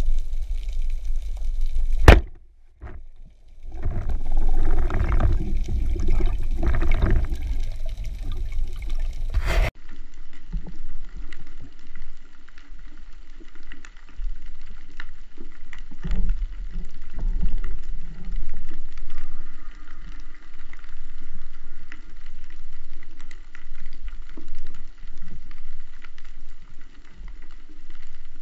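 Underwater sound from a camera mounted on a speargun. About two seconds in comes a single sharp snap as the speargun fires at a white seabream, followed by several seconds of loud churning water noise. Later there is a steady underwater hiss with faint crackling and bubbling.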